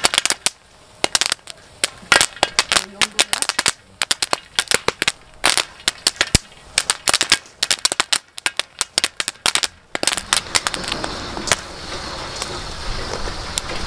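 Popcorn kernels popping on a cast-iron pot-lid griddle under a stainless mesh strainer dome: a rapid, irregular run of sharp pops. About ten seconds in the pops thin out into a steadier hiss with scattered pops.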